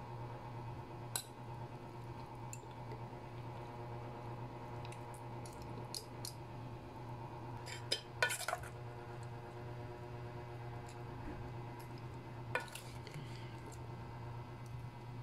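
Metal tongs and a ladle knocking and clinking against an enamelled cast-iron pot and an aluminium pot: a few scattered clinks, the loudest a quick cluster about eight seconds in. A steady low hum runs underneath.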